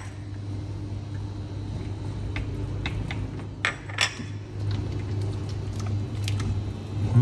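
Chopsticks tapping and clinking against a ceramic spoon and the rim of a steel soup pot while meat is pushed into the soup and stirred: a few scattered sharp taps over a steady low hum.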